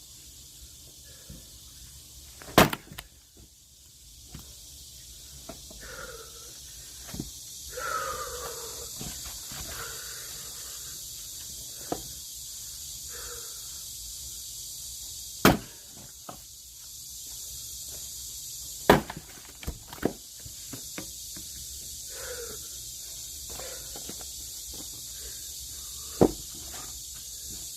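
Four loud, sharp knocks spaced several seconds apart, with smaller clicks and faint voices in between.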